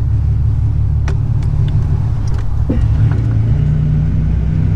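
Buick Century's engine running, a steady low rumble with a few faint clicks over it.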